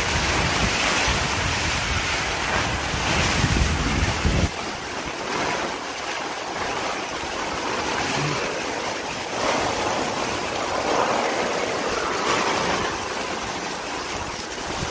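Heavy tropical-storm rain and strong wind, a steady loud rushing hiss. Gusts buffet the microphone with a low rumble until about four and a half seconds in, then drop away.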